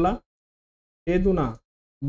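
Only speech: a man's voice speaking short words, one ending right at the start and another about a second in, with dead silence between them.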